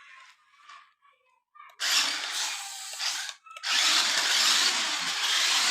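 Toy RC car's small electric drive motor and gears running in two bursts: a short one about two seconds in, then a longer one from about halfway that carries on past the end.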